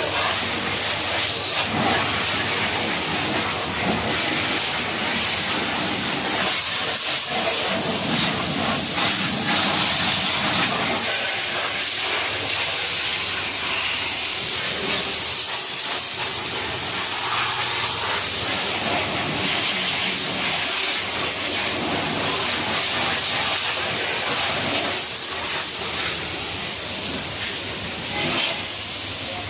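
Pressure washer spraying a high-pressure water jet: a steady, loud hiss that shifts a little as the spray moves.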